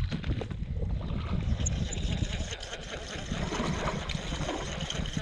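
Water splashing and lapping over a steady low rumble.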